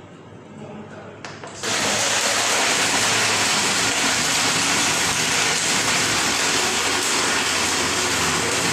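Ice blender with a Malin jar switched on about one and a half seconds in, after a couple of clicks, then running steadily at full speed crushing ice for a smoothie.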